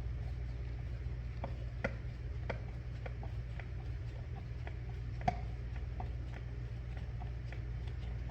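Light clicks and taps of small hand work on an electrical outlet's mounting screws and spacer tabs, coming about twice a second, with one sharper click about five seconds in, over a steady low hum.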